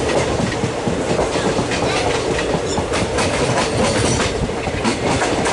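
Passenger train coaches running through at speed, wheels clacking over rail joints in quick succession over a steady rumble, with a few faint short squeaks.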